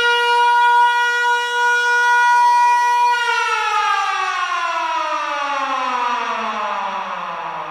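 Civil defense siren holding a steady pitch, then, about three seconds in, winding down in a long falling glide.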